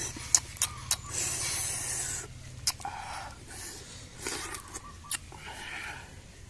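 Close-up eating sounds: a scattering of sharp crunchy clicks from biting and chewing fruit, mixed with a few short hissing, breathy noises.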